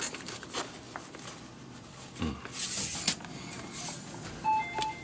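Leather glove lace being drawn through the leather of a baseball glove's web, giving irregular rubbing swishes. Near the end a string of short, evenly spaced electronic beeps starts: a shop door chime.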